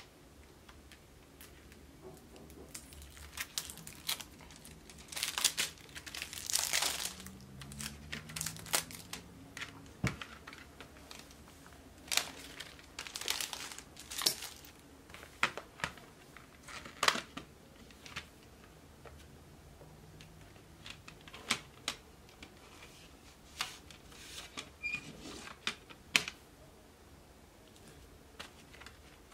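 Clear plastic album wrapping crinkling and tearing as it is pulled open, most of it in the first third. After that comes a string of short sharp clicks and taps from a plastic CD case and cards being handled.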